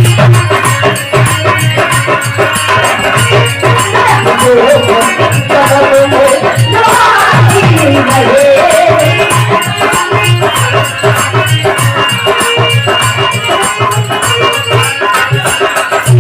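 Live Indian devotional folk music: fast, even rattling hand percussion over a steady low drone, with a wavering melodic line on top.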